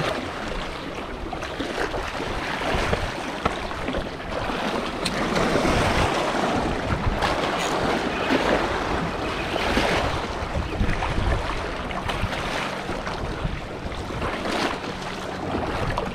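Small sea waves washing and breaking against jetty rocks, swelling louder and easing off, with wind buffeting the microphone.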